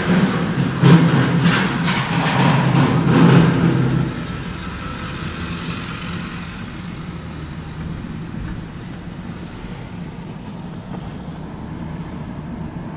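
Steady road and engine noise heard from inside a slowly moving car. For the first four seconds it is louder, with a low rumble and a run of knocks and rustles, then it settles to a quieter steady hum.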